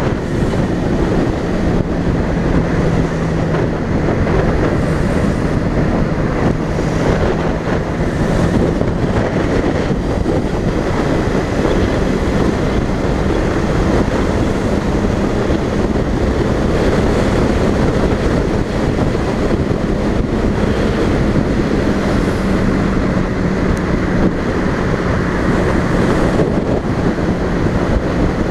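Wind rushing over the microphone of a Honda motorcycle cruising at expressway speed, with the engine's steady hum underneath.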